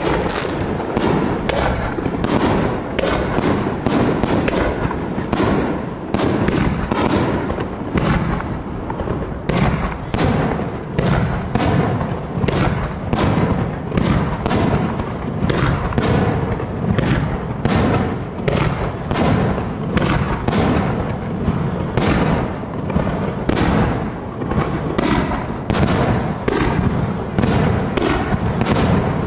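Fireworks display: launches and aerial shell bursts going off without a break, more than one sharp bang a second over a steady low rumble.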